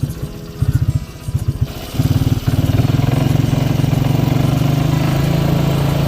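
Four-wheeler engine chugging unevenly at low speed. About two seconds in it picks up to a steady, louder run under throttle.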